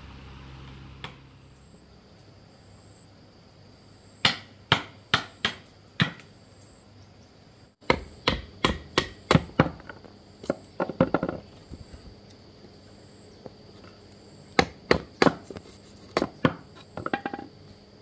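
Repeated chopping with a blade: sharp strikes in three bursts of quick blows, each burst a handful of hits about half a second apart.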